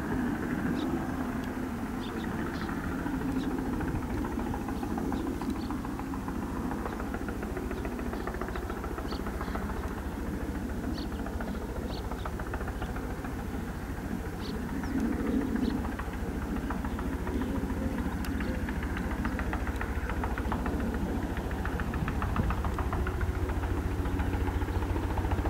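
Bell 206 JetRanger helicopter flying low, its two-bladed main rotor beating rapidly over the turbine engine's steady running. The sound grows louder over the last few seconds as the helicopter comes closer.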